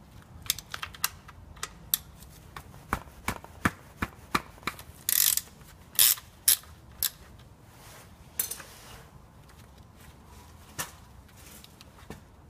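Sharp metallic clicks in irregular runs, with a couple of short scrapes, from a wrench unscrewing the oil drain plug on the engine's oil pan.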